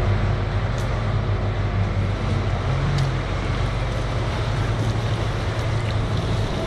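Toyota Hilux pickup's engine running at low revs as it crawls through deep mud, with a brief slight rise in pitch about three seconds in.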